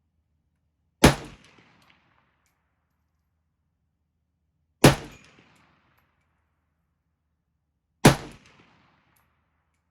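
Three single shots from a Norinco Mac 90 AK-pattern semi-automatic rifle in 7.62x39mm, fired a few seconds apart while shooting a group. Each shot is a sharp crack followed by an echo that fades within about a second.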